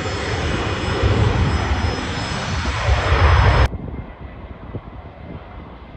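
Jet airliner's engines running at high power on the runway, growing louder. About two-thirds of the way through it cuts off abruptly to a much quieter, distant jet hum with wind gusting on the microphone.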